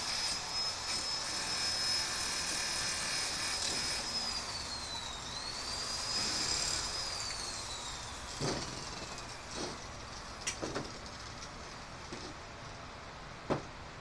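Corded electric drill running at high speed with an attachment pressed against a welded steel hook, its whine dipping in pitch briefly under load about five seconds in. It is switched off about seven seconds in and winds down in a long falling whine, followed by a few sharp knocks.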